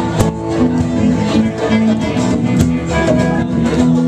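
A live rock band playing an instrumental passage led by guitar, with a sharp drum or cymbal hit near the start and another about two and a half seconds later.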